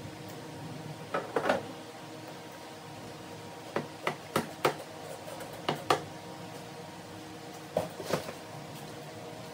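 Plastic and rubber clicks and knocks from a Jeep Wrangler YJ's air intake tube and airbox being worked loose and pulled off the engine by hand. They come in short clusters of two or three sharp knocks every second or two.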